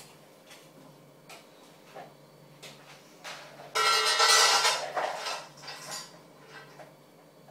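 Metal dog food bowl clattering and ringing as it is handled, one loud clatter lasting about a second midway through. Light scattered clicks and taps come before and after it.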